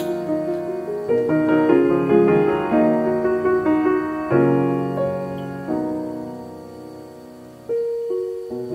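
Background solo piano music: a gentle melody of struck notes that fade away between phrases.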